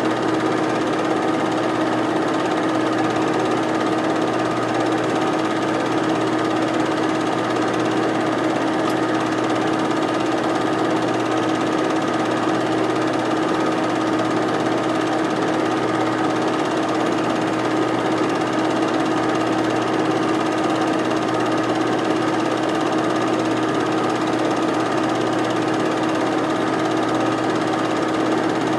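Film projector running, a steady mechanical whir with a constant hum that does not change.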